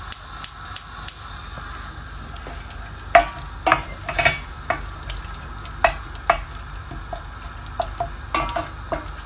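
A gas hob's igniter clicking several times in quick succession for about the first second as the burner is relit, then raw mango chutney sizzling in a stainless steel pan while a wooden spoon stirs it, scraping and knocking against the pan.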